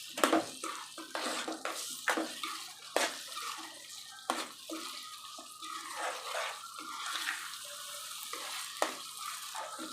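Vegetables sizzling in oil and masala in a kadhai while a spoon stirs them, with a steady hiss. The spoon scrapes the pan and knocks sharply against the metal now and then.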